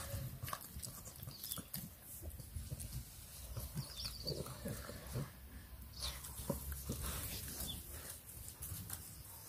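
English bulldog puppy chewing and gnawing on a dry stick: scattered short clicks of the wood in its mouth, mixed with the puppy's own breathing noises.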